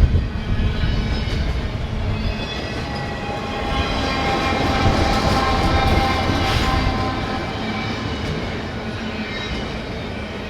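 CN intermodal freight train rolling slowly past: a steady rumble of steel wheels on the rails. A steady high whine swells in the middle and fades again.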